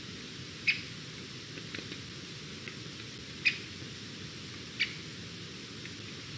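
Young white-tailed eagle giving short, high squeaky calls: three clear single calls a second or more apart, with a couple of fainter ones between, over a steady background hiss.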